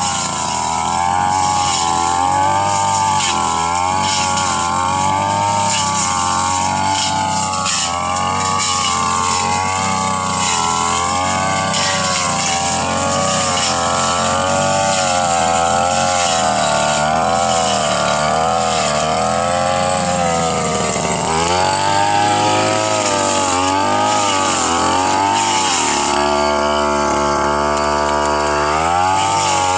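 Petrol brush cutter running hard while cutting grass, its engine pitch rising and falling again and again as the blade takes the load. Near the end the engine revs up.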